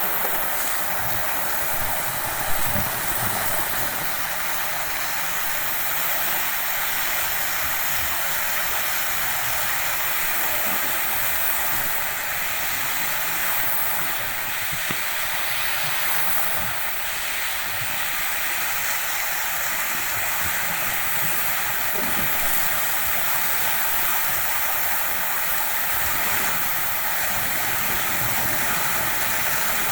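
Gas flame hissing steadily while it burns a Milky milk candy.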